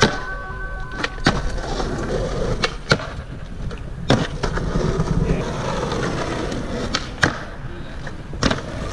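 Skateboard wheels rolling over rough asphalt and concrete, broken by about six sharp clacks of the deck and trucks hitting and popping off a concrete curb ledge.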